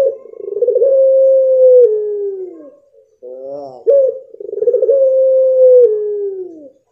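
A pied puter pelung, a long-calling breed of Barbary dove, giving two long calls. Each opens with a short up-and-down note, then holds a long steady tone that steps down and slides lower as it fades.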